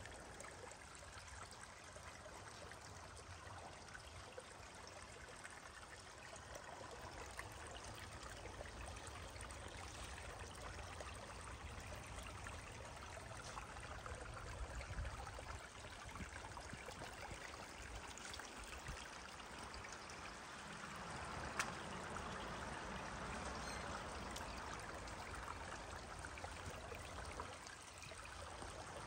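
Shallow forest stream trickling over stones, steady and faint, swelling a little in the second half. One sharp click sounds about two-thirds of the way through.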